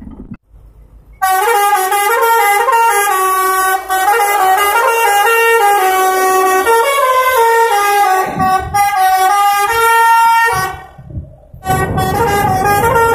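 Bus 'telolet' horn: a multi-tone musical air horn playing a stepping tune. It starts about a second in, breaks off briefly near the end and starts again, with a low rumble under it.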